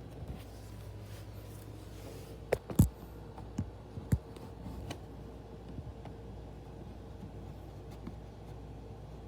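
Small CPU cooling fan running steadily with a low hum and a faint steady whine. A few sharp clicks or knocks come about two and a half to four seconds in, the loudest near the three-second mark.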